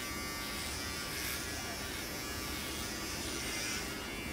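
Electric hair clippers buzzing steadily as they are run through a man's hair.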